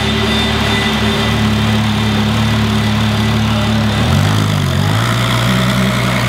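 Ferrari LaFerrari's V12 engine idling steadily. About four seconds in, the idle shifts with a brief rise and fall in pitch, then settles again.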